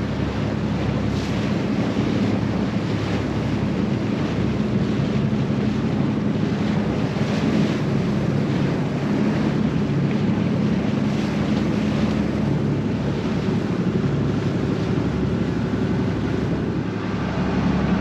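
Small passenger boat's engine running steadily under way, with water rushing past the hull and wind buffeting the microphone.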